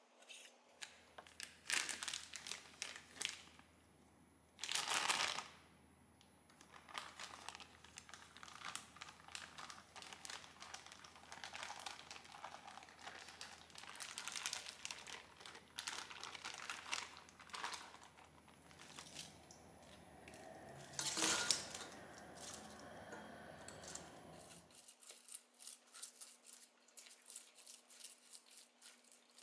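Packaging crinkling and rustling as it is handled, in irregular bursts with two louder crackles, over a low steady hum that cuts off near the end.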